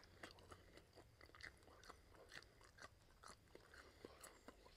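Faint, close-miked chewing and biting of a pork rib: a string of soft, irregular mouth clicks and crunches.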